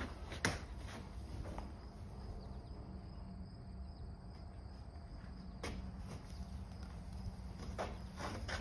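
Round hay bales being pushed and rolled on a dirt floor: a few soft knocks and rustles of hay, about half a second in, near the middle and near the end, over a steady low hum.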